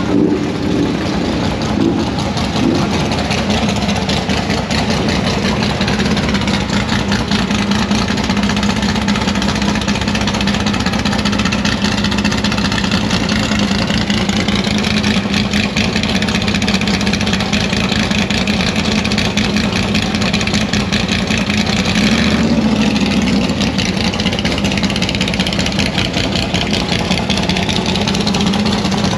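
Car engines running at a steady idle, with the pitch drifting up and back down in the middle and a shift in the engine note about three-quarters of the way through.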